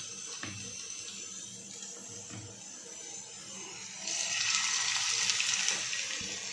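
Chicken pieces coated in egg and cornflour batter shallow-frying in a little oil over low heat: a soft, steady sizzle that grows louder about four seconds in.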